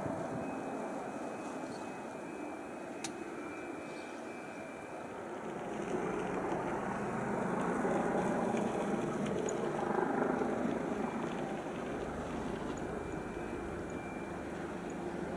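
Distant engine noise of a Boeing 747-8's four GEnx turbofans as the airliner rolls out on the runway just after touchdown: a steady rumble that swells about six seconds in and eases off near the end.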